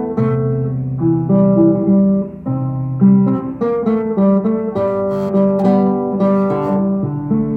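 Acoustic guitar playing a melody of plucked notes over chords, with strummed chords coming in more sharply in the second half.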